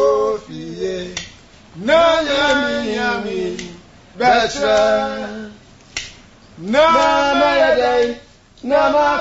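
A voice singing unaccompanied in phrases of one and a half to two seconds, with short pauses between them; most phrases fall in pitch at their end. A single sharp click about six seconds in.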